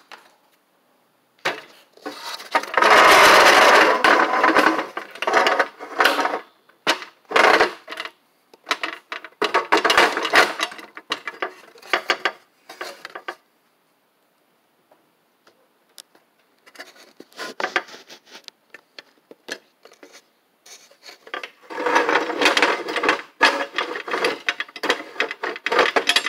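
Handling noise from working with parts on a workbench: bursts of rubbing and clattering with many sharp clicks, in three loud spells, one near the start, one in the middle and one near the end.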